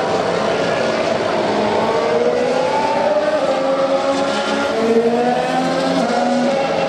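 2016 Formula 1 cars' 1.6-litre turbocharged V6 engines passing on track, several engine notes overlapping and rising and falling in pitch as the cars accelerate and lift through the corners, loudest a little after the middle.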